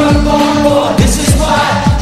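Live worship band playing through PA speakers, with guitars, keyboard and a lead singer, and a congregation singing along. A steady low beat runs under it, about two to three thumps a second.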